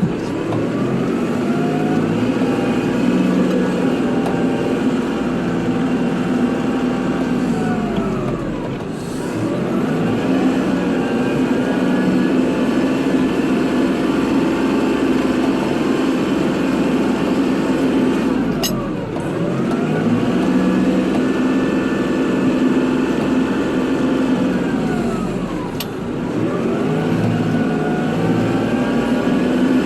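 Kubota tractor's diesel engine running hard while plowing snow. Its revs sag and climb back up again every eight to ten seconds, as the tractor works back and forth.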